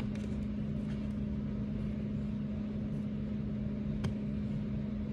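Steady machine hum with one even tone and a low rumble under it, like a running household appliance or fan; a single light click about four seconds in.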